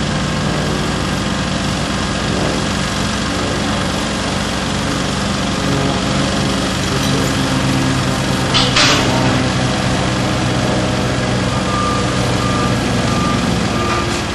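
Heavy brush fire truck's engine running steadily, with a short burst of hiss about two thirds of the way through. Near the end a vehicle's reversing alarm starts beeping at an even pace.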